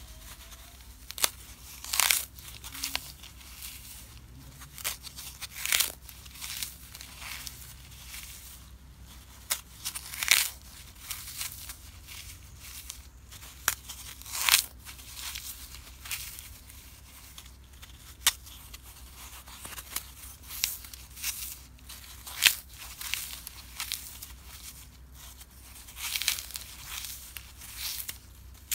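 Dry, unsoaked floral foam being squeezed and crushed by hand: irregular crisp crunching and crumbling, broken by scattered sharper cracks where a block gives way, a few much louder than the rest.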